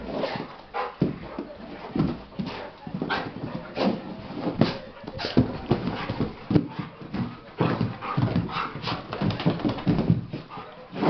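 Two golden retrievers play-wrestling: short, uneven dog vocal sounds mixed with the bumps and scuffles of their bodies and paws, coming about once or twice a second.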